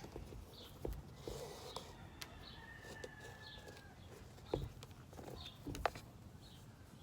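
Faint bird-like animal calls, short chirps repeating with one longer held call in the middle, over a few light clicks and knocks.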